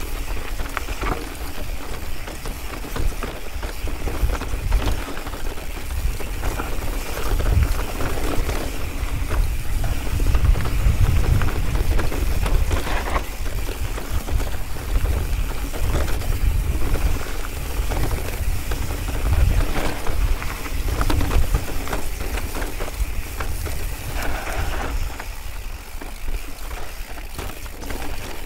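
Mountain bike riding fast downhill over loose rock: a steady rattle of tyres, chain and frame clattering over the stones, with heavy wind rumble on the microphone.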